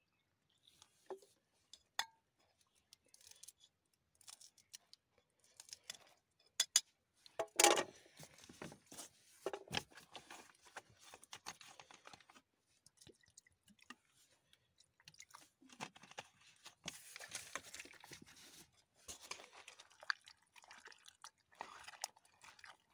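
A metal spoon stirring and scraping through a crunchy food mix in a steel bowl: irregular crunching and scraping with occasional clinks of spoon on steel.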